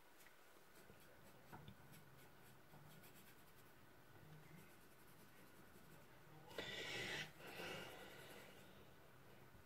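Drawing on paper: faint scratching of the drawing tool's strokes across the sheet, with a louder run of strokes about two-thirds of the way through.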